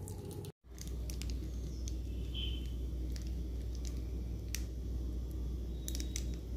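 Soft handling of a piping bag as thick custard is squeezed into glass tumblers: a few faint ticks over a steady low hum. The sound cuts out completely for a moment about half a second in.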